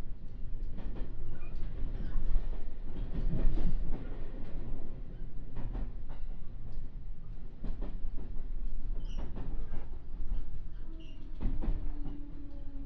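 JR West 221 series electric train running, heard from inside the car: a steady low rumble with the clack of wheels over rail joints, and a faint steady tone near the end.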